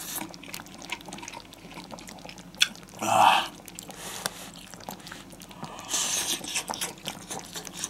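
A person eating hot pot close to the microphone: chewing with small clicks, and two short louder sounds about three and six seconds in.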